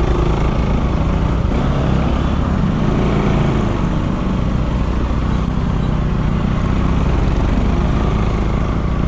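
Bajaj Pulsar NS200 single-cylinder engine running through an aftermarket Akrapovic exhaust with its dB killer fitted, a steady even exhaust note with no big revs.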